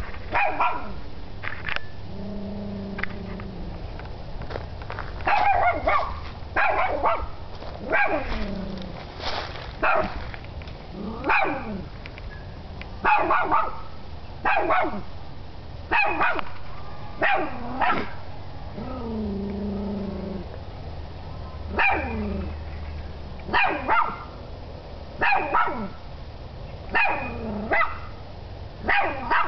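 Small mixed-breed dog barking over and over with short, sharp, high barks, often in twos, every second or two. Twice there is a low, drawn-out growl between the barks.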